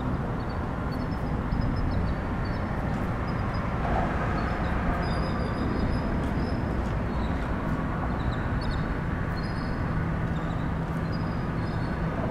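Steady low outdoor rumble, with short high chirps repeating over it.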